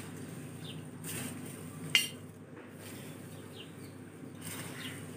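Steel slotted spoon stirring dry, crisp poha chivda in a large steel plate: the flakes and nuts rustle and the metal scrapes, with one sharp clink of spoon against plate about two seconds in.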